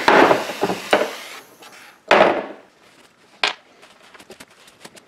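Metal tools knocking and clinking against a bench vise and a small electric motor, with a few sharp knocks near the start, about a second in and past the middle. Between them comes the rustle of a shop towel rubbing grease off the motor, followed by faint small ticks.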